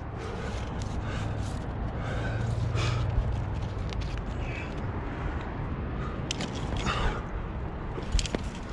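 Gloved hands and climbing shoes scuffing and scraping on granite as a climber jams up a crack, with a sharp click just after 8 s, over a steady rushing background noise.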